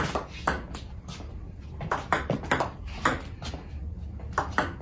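Table tennis balls clicking several times a second, hit by a racket faced with Xiom Omega VII China tacky rubber and bouncing on the table.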